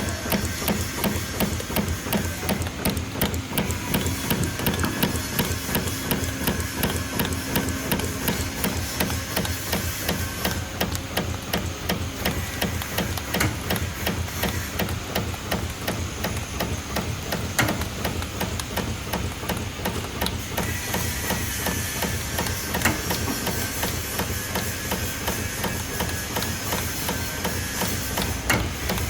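A 5-axis CNC forming machine running, its tooling striking in a rapid, continuous clatter of sharp clicks over a steady low machine hum.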